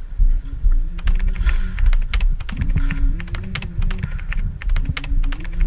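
Scattered sharp clicks and knocks from an airsoft close-quarters game, irregular and a few per second, over a steady low rumble.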